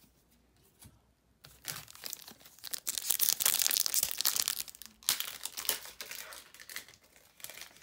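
Foil wrapper of a Magic: The Gathering Kaldheim booster pack crinkling and tearing as it is ripped open by hand. It starts about a second and a half in, is loudest around the middle, and thins out into scattered crinkles.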